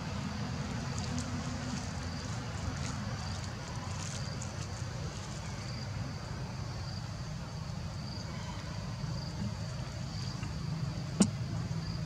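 A steady low rumble with a faint, high insect-like chirp repeating a little more than once a second, and one sharp click about eleven seconds in.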